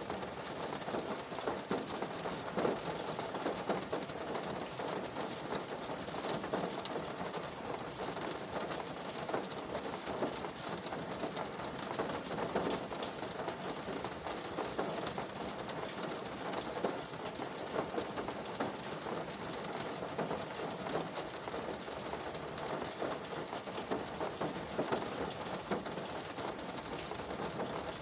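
Steady rain falling on a car's roof and windows, heard from inside the car as a dense, even patter of drops.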